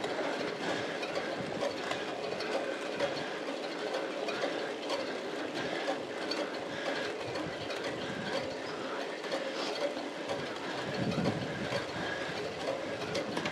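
Road bike being pedalled hard uphill: a steady whir of the chain and drivetrain, with tyre noise on wet asphalt and small ticks.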